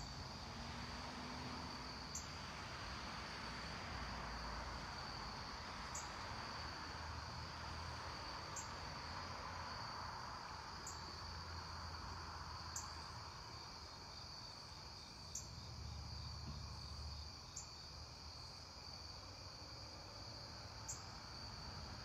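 Crickets chirring in a steady, even high trill. Partway through, a stream of water is poured from a pitcher into a bowl, a splashing rush under the crickets. A faint tick recurs about every two seconds.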